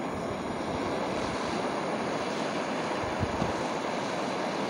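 Hand-held gas-cartridge torch burning with a steady hiss as its flame scorches the surface of wooden boards, charring them in the shou sugi ban manner.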